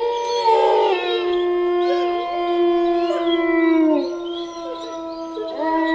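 Dogs howling together: several long, drawn-out notes held at once, which sag in pitch about four seconds in and start up again near the end.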